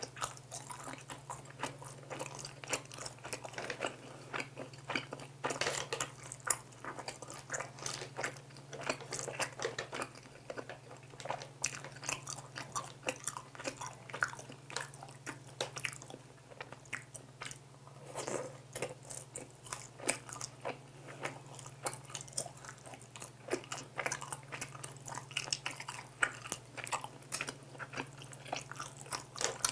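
Close-miked chewing and biting of crispy soy-glazed fried chicken, a dense run of irregular crisp crunches with wet chewing between them. A faint steady low hum runs underneath.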